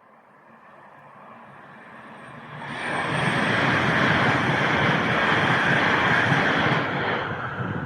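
A train approaching and passing the footbridge: a rumble that swells over the first few seconds into a loud, steady rush of wheels on rail, held for about four seconds.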